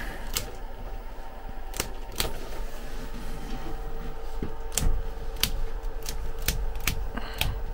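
About a dozen irregular sharp clicks and taps over a steady mechanical hum.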